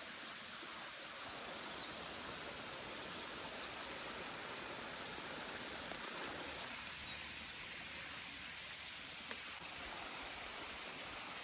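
Steady rush of running water from a nearby waterfall and stream, an even hiss with no breaks.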